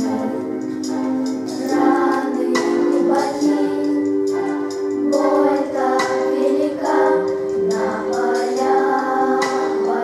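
Children's choir singing a Russian song over an instrumental accompaniment with long held chords and a regular beat.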